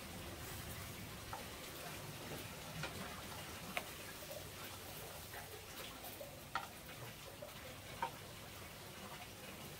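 Food frying in a small pan over an open wood fire: a faint, steady sizzle and crackle with scattered sharp ticks, the loudest about four, six and a half and eight seconds in.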